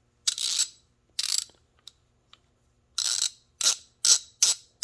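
Hand socket ratchet being cycled back and forth in short ratcheting bursts, a couple of slower strokes and then a quicker run near the end. The ratchet is stiff, which the owner thinks needs to be worked, or opened up and oiled.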